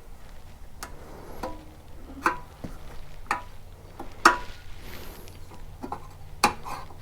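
Scattered metallic clicks and taps from hand work on a small engine's parts, about seven in all at uneven intervals, the loudest a little past four seconds in.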